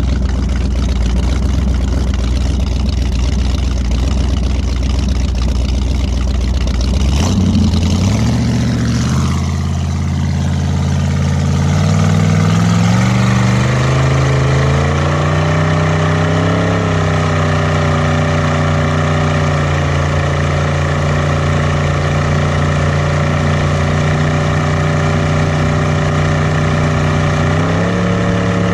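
Boat engine heard through its transom exhaust over rushing wake water: it idles low, then is revved up about a quarter of the way in, its pitch climbing in several steps as the boat accelerates. It then runs steady at speed, with a small further rise near the end.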